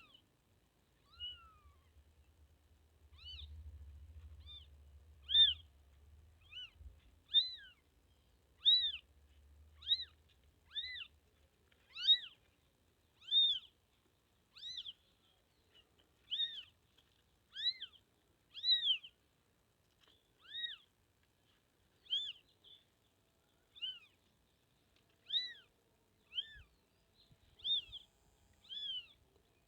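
Newborn kitten mewing over and over, short high-pitched cries coming about once a second, the distress calls of a kitten separated from its mother. A faint low rumble sits under the first several seconds.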